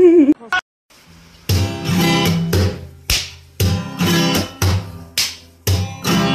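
A cat's meow cuts off just after the start, followed by a short silence. Then strummed acoustic guitar music begins about a second and a half in, in repeated chords.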